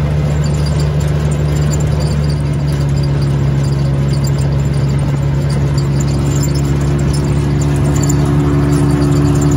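ATV engine and drivetrain running at a steady cruising speed: a constant drone, joined about two seconds in by a higher steady whine.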